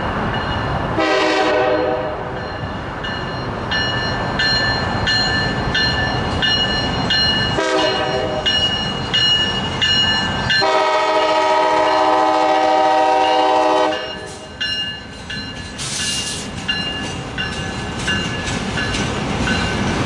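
Diesel freight locomotive sounding its air horn as it approaches: a short blast about a second in, another near eight seconds, then a long blast of about three seconds. Under it the engine and wheels rumble, and in the last few seconds the tank cars clatter past on the rails.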